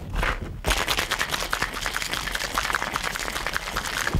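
Ice rattling rapidly inside a two-piece metal cocktail shaker being shaken hard to chill the drink. The rattle starts just under a second in.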